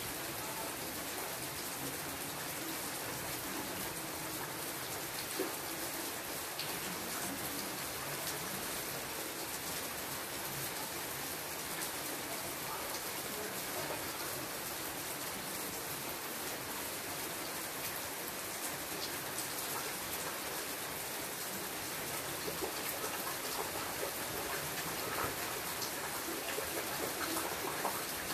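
Steady rain falling on leaves: a dense hiss of drops with individual drip ticks, growing a little louder near the end.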